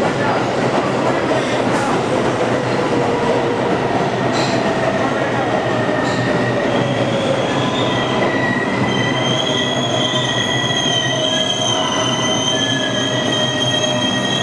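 Kawasaki R142A subway train pulling into the station, with a loud, steady rumble of wheels on rail and a couple of sharp clicks in the first few seconds. From about halfway through, the wheels squeal in several high-pitched tones that hold to the end.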